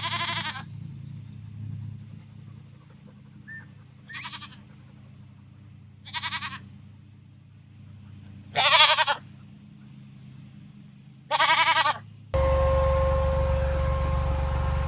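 Goats bleating: five separate wavering bleats a couple of seconds apart, the fourth the loudest. About twelve seconds in they give way to a steady drone with a constant tone.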